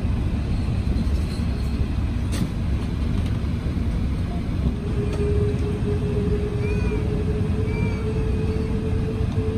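Airbus A380 cabin noise while taxiing: a steady low rumble of the aircraft rolling with its engines running, with a steady hum joining about halfway through. A couple of faint short squeaks come late on.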